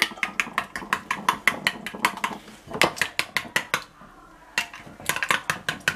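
A spatula and spoon scraping and tapping against glass mixing bowls while butter is spread and pie filling is stirred: a quick run of short clinks and scrapes, several a second, with a brief pause about four seconds in.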